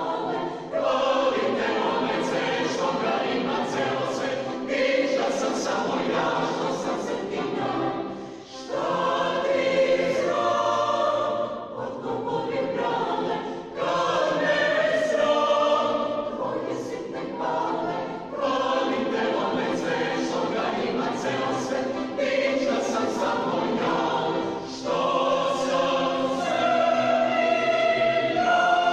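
Large mixed choir of men's and women's voices singing a traditional Serbian song, with short breaks between phrases.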